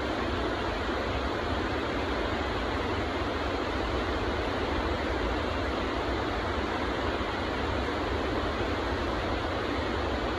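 Flood-swollen rainforest creek rushing steadily over boulders and small falls.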